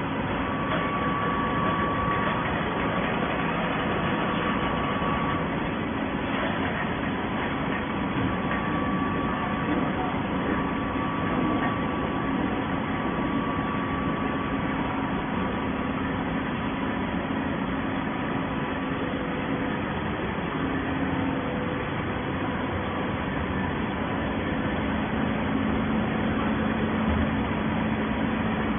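Hydraulic baler running with a steady mechanical hum, a few held tones under an even machine noise, and faint voices in the background.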